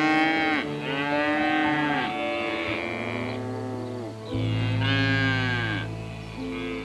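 An animal calling four times in long, drawn-out calls, each rising and then falling in pitch, over background music with steady held tones.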